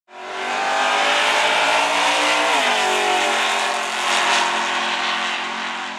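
A race car engine running at high revs. Its pitch drops about two and a half seconds in, and the sound fades away near the end.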